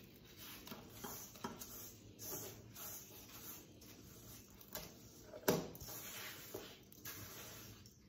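Spatula mashing softened butter and sugar against the side of a stainless steel bowl: soft, irregular scrapes and dabs, with a sharper knock about five and a half seconds in.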